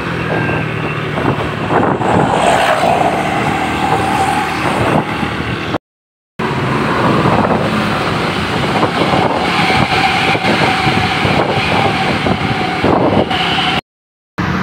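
Tour bus telolet horn sounding long held tones over bus engine and traffic noise. The sound drops out to silence twice for about half a second.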